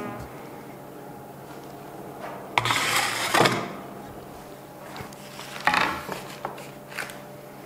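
Wooden bread peel scraping over the stone floor of an electric stone oven as a loaf in its baking form is slid in: two scraping slides with a few light knocks between them.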